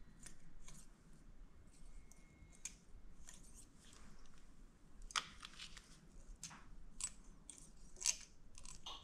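Faint, scattered clicks and light metallic scrapes of a steel feeler gauge being handled and slid between a camshaft lobe and valve bucket to check intake valve clearance. A few sharper clicks come about five, seven and eight seconds in.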